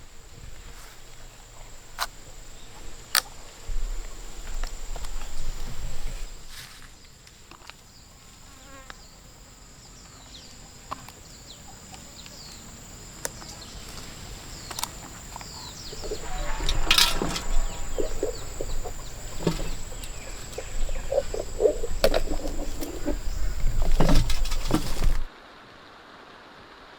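Insects droning with a steady high-pitched note, over scattered clicks and knocks that grow louder and busier in the second half. The sound cuts off abruptly about two seconds before the end.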